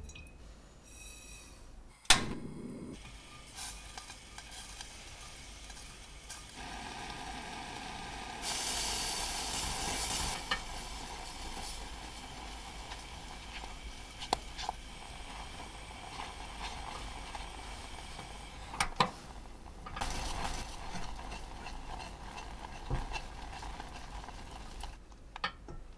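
Milk simmering in a stainless steel saucepan, bubbling and hissing as it reduces into condensed milk, while a spatula stirs it and scrapes and taps the pan. A sharp click about two seconds in.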